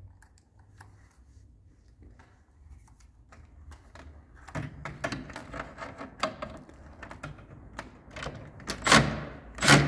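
Small clicks, taps and scraping of tools and hands on the unit's plastic housing and metal bracket, getting busier partway through, then two short loud bursts near the end from a power drill/driver working out the stripped screw on the coil bracket.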